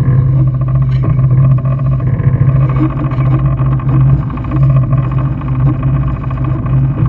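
Jet ski engine idling steadily, a constant low hum with no revving.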